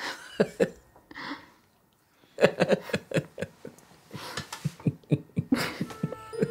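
Two women laughing together in quick, breathy bursts, starting after a short hush about two seconds in.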